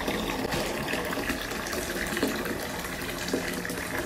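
Steady rush of water in a bathtub full of foamy bathwater, with a few small splashes.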